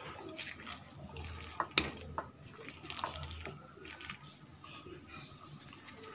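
Wet ground dal paste and chopped colocasia leaves being mixed by hand in a steel bowl: soft squelching with scattered light clicks against the bowl, one sharper knock about two seconds in.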